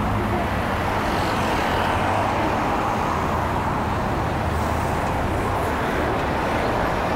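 Steady city street noise: road traffic running past at a busy intersection, an even din with no sharp sounds.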